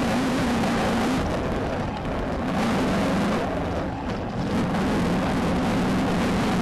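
Air-cooled Volkswagen Beetle flat-four engine heard from inside the off-road race car, running hard at steady high revs over heavy chassis and dirt noise, easing off briefly twice.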